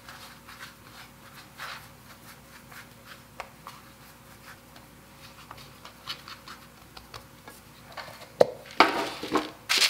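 Hands rolling cookie dough into logs on a wooden cutting board: soft, irregular scratching and rubbing. Near the end comes a sharp knock, then a louder rustle.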